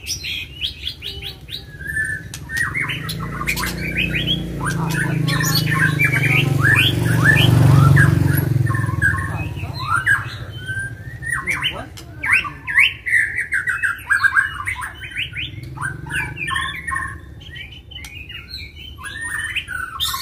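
White-rumped shamas singing rapid, varied phrases with harsh notes, the excited, combative song keepers call 'gacor' and 'fighter'. A low rumble swells and fades beneath the song in the middle.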